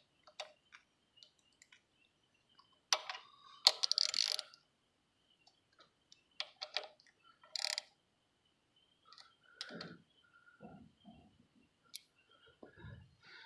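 Scattered clicks and short metallic clatters of hand tools and small parts being handled during work on a motorcycle engine cover, loudest in a burst about three to four and a half seconds in, with softer knocks near the end.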